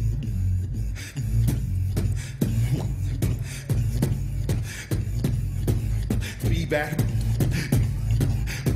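Human beatboxing through a handheld microphone. A deep, continuous humming bass line runs under a steady beat of sharp, snare-like clicks. From about two-thirds of the way in, a wavering pitched vocal tone joins the beat.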